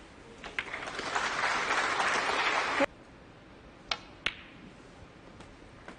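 Audience applauding, cut off abruptly about three seconds in. Then two sharp clicks less than half a second apart: a snooker cue tip striking the cue ball and the cue ball hitting an object ball.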